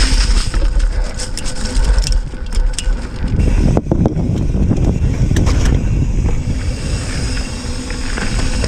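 Hardtail mountain bike being ridden along a dirt trail: wind buffeting the camera microphone and tyres rumbling over the ground, with clicks and rattles from the bike over bumps and a sharp knock about four seconds in.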